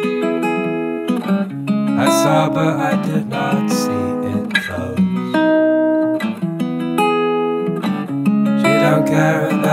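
Background music: an acoustic guitar plucking and strumming an instrumental passage of a song.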